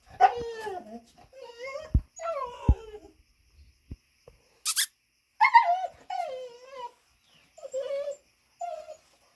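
A dog making a series of high-pitched whining, squealing calls that slide up and down in pitch, about six of them with short gaps between. A brief hissing burst comes near the middle, and there are a couple of dull thumps.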